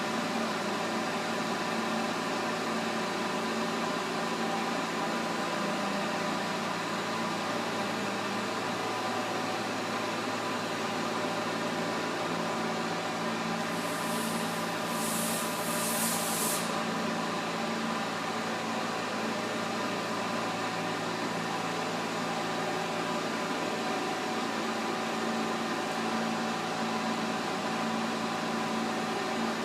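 Pinacho S-90/180 centre lathe running with the spindle turning, a steady mechanical hum and whine from the headstock gearing. About halfway through there are three short high hisses.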